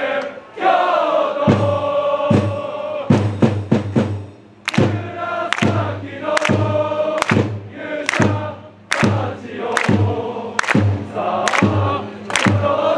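Football supporters' crowd singing a chant in unison, with a big drum beating a rhythm under the voices.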